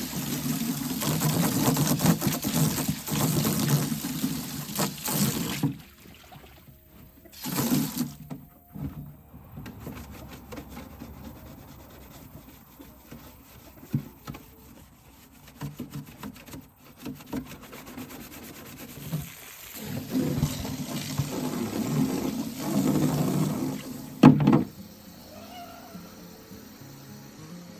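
Tap water running into a sink for hand-washing. It runs for the first several seconds, comes on briefly again, then runs for a few seconds near the end, with a sharp knock as it stops.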